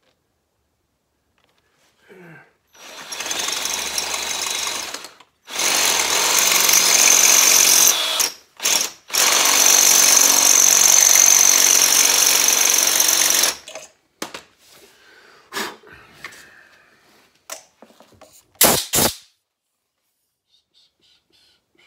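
Power drill running in three bursts, about two, two and a half and four and a half seconds long, boring out a broken exhaust stud to take a thread-repair insert. Faint short knocks follow, then two sharp clicks near the end.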